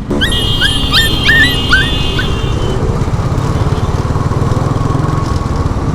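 A dog yelping, a quick run of short high-pitched yips in the first two and a half seconds, over the steady low running and road noise of a motorcycle being ridden.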